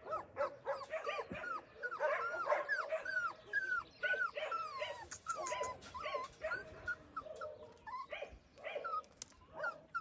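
A dog whimpering over and over: short high whines, most falling in pitch, several a second, thinning out after about six seconds.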